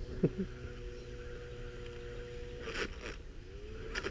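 Motor of an RC crawler rigged as a weed eater, spinning its cutting blade with a steady whine. A few sharp knocks come as the blade hits a hard woody rose-bush stem, and near the end the pitch drops and then rises again as the motor bogs and spins back up.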